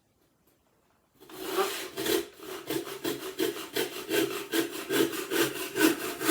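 Handsaw sawing through wood in quick back-and-forth strokes, about three a second, starting about a second in: the waste nub being cut off the end of a freshly turned wooden handle.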